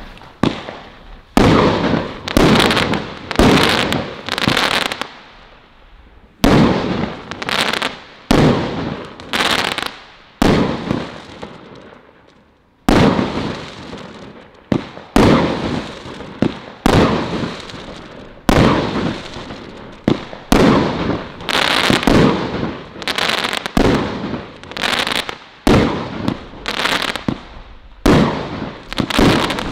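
Celtic Fireworks Colour Crackles firework going off: a rapid series of shots, each sharp report followed by a fading spray of crackles. The shots come in runs with two brief lulls, one about five seconds in and a longer one about twelve seconds in.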